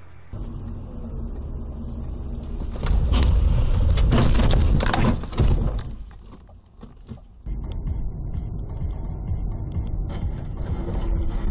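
Vehicle noise from inside a car: a steady low engine and road rumble, with a loud stretch of clattering and knocking in the middle. About two thirds of the way in, it cuts to a different steady vehicle rumble.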